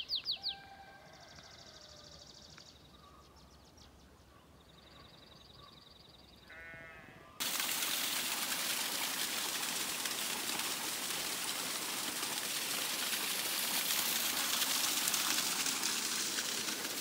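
Quiet early-morning birdsong with high thin calls, and a sheep bleating briefly about seven seconds in. Then a sudden cut to the steady rush of a small waterfall splashing down a rock face, which is the loudest sound.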